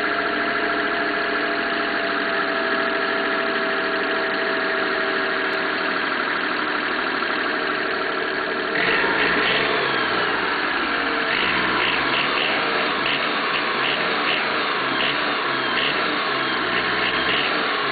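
Mitsubishi 3G83 three-cylinder engine running with a rattling noise (gara-gara), the fault being repaired and put down to piston slap and a worn connecting-rod bearing. About halfway through, the sound changes to a fuller rumble with a run of sharp ticks.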